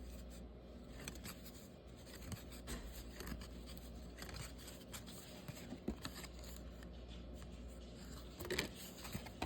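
Faint handling noise of cardboard trading cards being leafed through: small scattered clicks and rustles, a little louder near the end, over a steady low hum.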